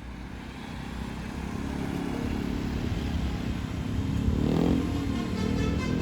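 Tour bus engine approaching and growing steadily louder, with a brief rise in engine pitch about four and a half seconds in as it accelerates.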